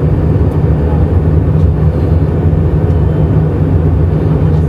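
Jet airliner cabin noise in flight: the wing-mounted turbofan engine and the rushing airflow make a loud, steady, low-heavy drone.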